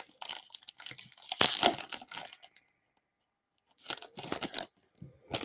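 Trading cards and foil pack wrappers being handled: crinkling, tearing and sliding rustles in two spells with a short pause between them.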